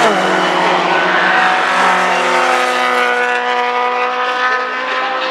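Racing cars' engines at high revs on track: one engine's note drops in pitch as it passes right at the start, then another holds a steady note.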